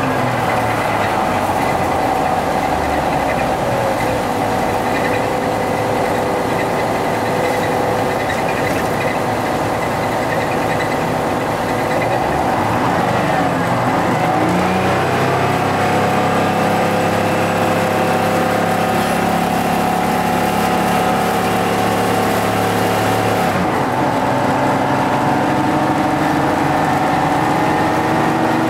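GM TDH-5303 transit bus's two-stroke Detroit Diesel engine running while the bus is under way. Its pitch dips and climbs again about halfway through, then changes again near the end as the engine speed shifts.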